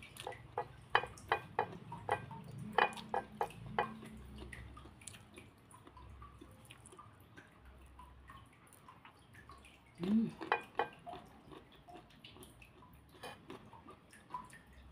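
Wet clicking and smacking mouth sounds of someone chewing food, a quick run of them in the first few seconds and another cluster about ten seconds in, with a short hum at its start.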